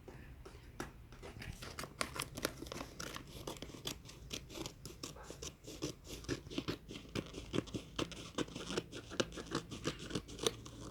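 Gift wrapping being torn off a boxed present: paper crinkling and tearing, with a quick run of sharp snaps and scratches that starts about a second in.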